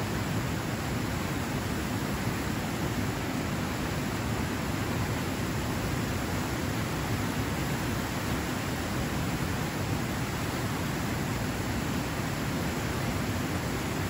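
Small waterfall pouring over rocks into a pool: a steady rush of falling water.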